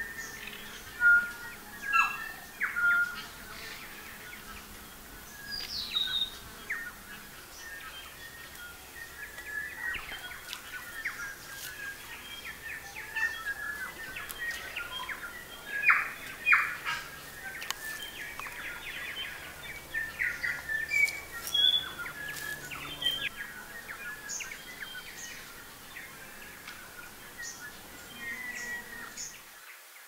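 Forest birdsong from several native New Zealand birds: a scattered mix of short chirps, whistles and calls overlapping one another, with a few louder calls near the start and around the middle.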